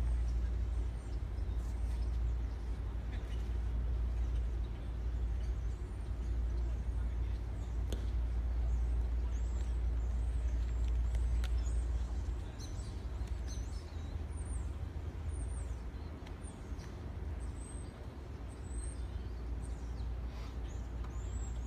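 Outdoor ambience dominated by a low rumble, heavier in the first half. In the second half small birds chirp again and again, short high notes that drop in pitch, and there are a couple of faint sharp knocks.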